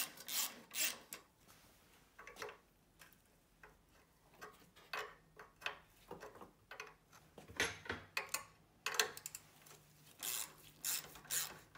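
Socket wrench loosening the nuts on a car battery's J-hook hold-downs: irregular runs of short clicks and scraping strokes of metal on metal, with brief pauses between.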